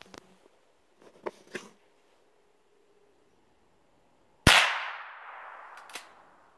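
A single .22 rifle shot about four and a half seconds in, its report dying away through the woods over about a second and a half, followed by one sharp click. A few faint clicks come before the shot.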